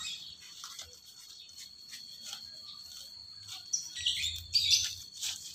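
Faint rustling and small plucks as weeds are pulled from the soil of a potted coconut bonsai, under a steady high whine that stops a little past halfway. Small birds chirp a few times near the end.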